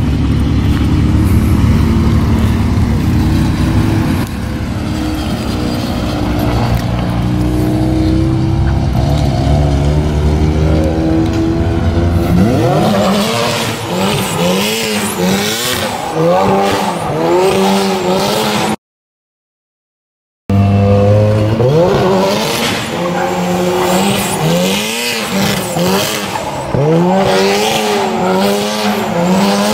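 Turbocharged 13B rotary engine of a Mazda RX-7 FC holding a steady note, then from about halfway revving up and down over and over as the car is thrown into donuts, tires squealing. The sound cuts out for a second or two partway through.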